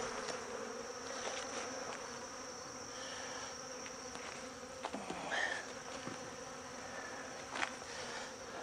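Honeybees buzzing steadily in a low hum around an open hive as frames covered in bees are lifted out, with a few light knocks from the frames being handled.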